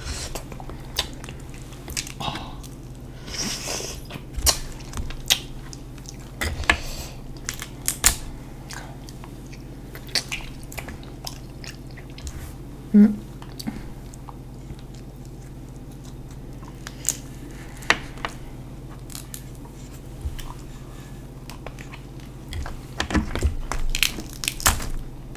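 Close-miked eating sounds: crab leg shells cracking and snapping in the hands as the meat is pulled out, with chewing in between. The cracks come singly and irregularly, the loudest about halfway through, with a quicker run of them near the end.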